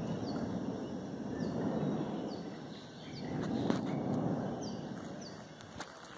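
Low rumbling from distant erupting volcanic fissures, swelling and fading twice. A bird chirps repeatedly over it in short falling notes.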